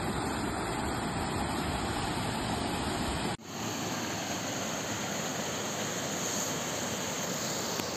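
Steady rush of a small waterfall pouring into a pool, with a sudden brief dropout about three and a half seconds in, after which the same rushing water continues with a brighter hiss.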